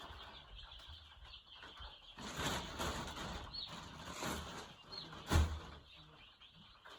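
Day-old broiler chicks peeping faintly amid rustling and scuffling in the brooder, busiest about two to four seconds in. A single sharp thump comes near the end.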